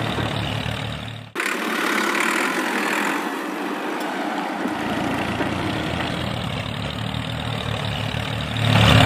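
Tractor engine idling with a steady low chugging. The low rumble cuts out about a second in, returns a few seconds later, and gets louder near the end.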